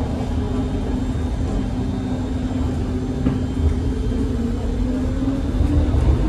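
Electric tram running, heard from inside the passenger saloon: a steady low rumble of wheels on rail, with a motor whine that rises in pitch in the second half as the tram picks up speed.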